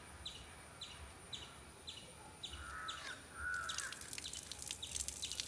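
Water splashing as a jet pours from a hole in a plastic bucket once the leak-repair tape is peeled off, starting about three and a half seconds in. Before it, a bird chirps about twice a second and another bird calls briefly.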